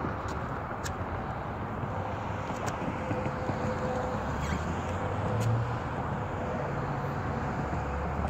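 Steady outdoor background rumble, with a few faint clicks and knocks from a plastic kayak being pushed along a car's roof rack.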